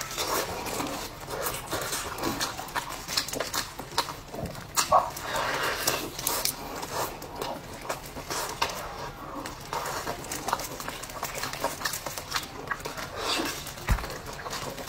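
Close-miked eating: chewing and lip-smacking with many irregular wet mouth clicks, and a longer sucking or slurping hiss about five seconds in.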